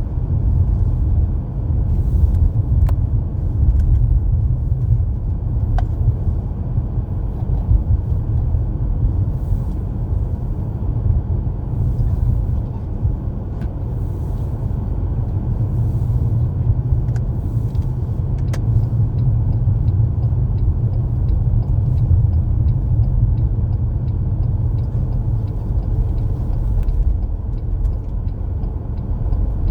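Steady low rumble of a car driving on a snowy road, engine and tyre noise. A faint regular ticking, about twice a second, joins it about two-thirds of the way in.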